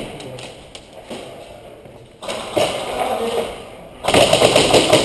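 Airsoft guns firing: a few scattered shots at first, then rapid, dense clicking fire that turns loud about four seconds in.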